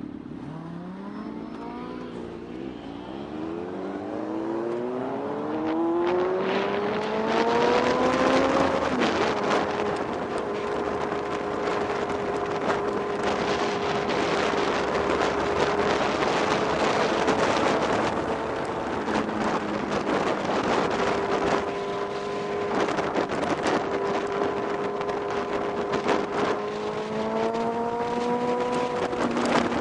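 Car engine accelerating, its pitch climbing steadily for about nine seconds, then holding steady at speed with road and wind noise. It rises again near the end.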